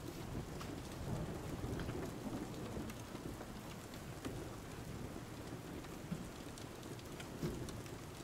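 Steady rain with a low rumble of thunder underneath and scattered sharp drop ticks.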